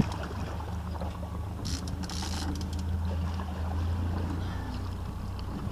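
Boat engine running with a steady low hum while trolling, and a brief splash of water about two seconds in.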